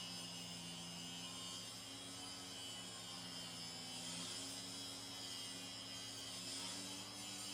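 Faint, steady low hum with a high hiss over it.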